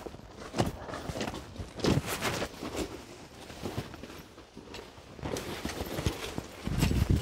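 Footsteps on snowy, icy ground: irregular steps, with a louder, heavier step near the end.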